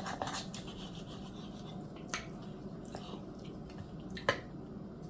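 Faint scraping and rubbing of cutlery cutting through a piece of pan-seared, crispy-skinned chicken, with two sharp clicks about 2 and 4 seconds in.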